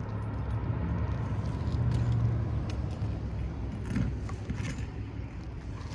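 Low engine hum of a motor vehicle running close by, fading after a couple of seconds, with a few light scrapes and clinks about four to five seconds in.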